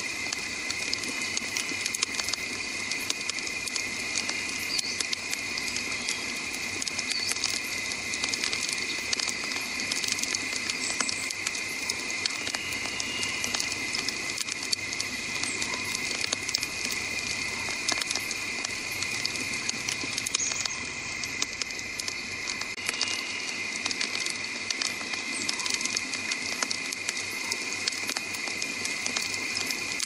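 Log campfire crackling with a dense, steady stream of small pops and snaps, over a steady high-pitched hum.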